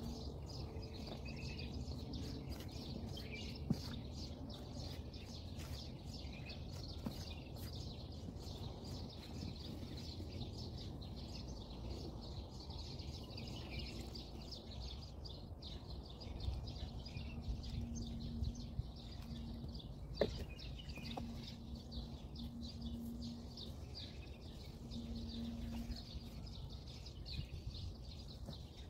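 Birds chirping over a low outdoor rumble, with two sharp clicks, one a few seconds in and one about two-thirds of the way through.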